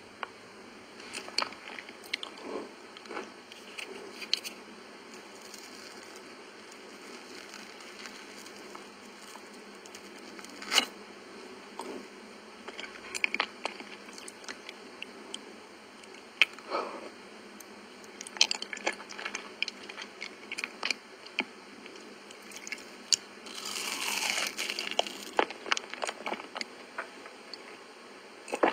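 Close-miked mouth sounds of someone eating soft layered crepe cake: scattered sticky, wet chewing clicks and smacks over a faint hiss. A longer noisy stretch comes toward the end.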